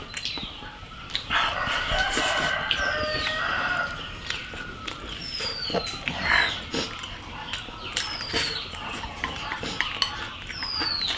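A rooster crows once, starting about a second in and lasting close to three seconds. A small bird repeats a short falling whistle every couple of seconds.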